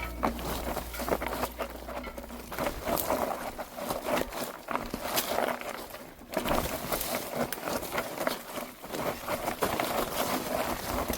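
Irregular rustling and crackling of someone pushing through dense undergrowth on an overgrown trail. The tail of a song fades out in the first couple of seconds.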